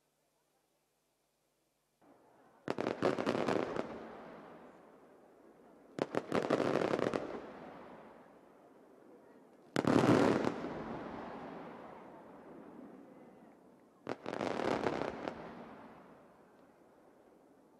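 Aerial firework shells bursting overhead, four times about every four seconds starting a few seconds in: each is a quick cluster of sharp bangs followed by a rolling echo that dies away.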